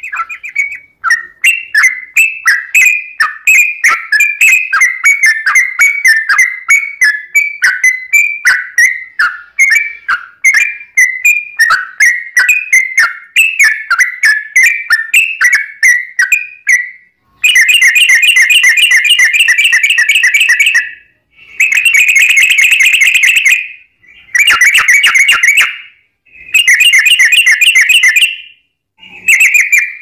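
Yellow-vented bulbul (trucuk) singing. For the first half it gives a quick run of chattering whistled notes, about four to five a second. It then breaks into five dense rapid trills, the long 'ropel' rolls, each lasting one to three seconds with brief pauses between.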